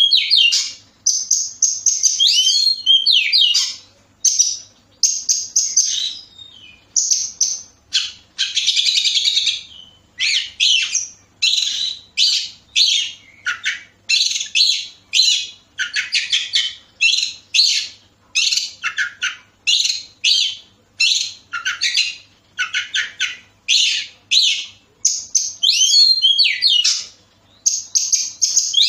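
Oriental magpie-robin (kacer) singing a varied song of short whistled and chattering phrases, about one a second with brief pauses. There is a harsher rasping stretch about eight seconds in.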